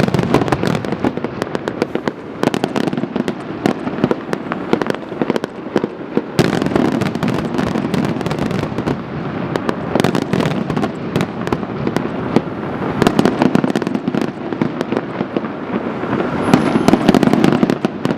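Fireworks display: a dense, rapid barrage of bangs and crackles that keeps going without a pause.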